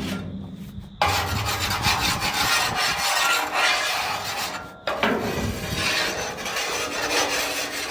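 Hand scraper rasping along the steel dump truck bed, scraping off leftover dried clay in steady strokes, with a brief break about five seconds in.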